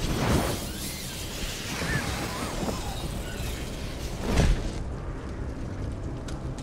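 Action-film sound design: a heavy boom right at the start and another loud boom about four seconds in, over a constant low rumble.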